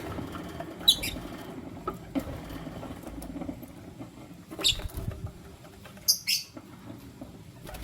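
Lutino lovebirds giving a few short, sharp, high chirps: a pair about a second in, one near the middle and two close together near the end, over a low background noise.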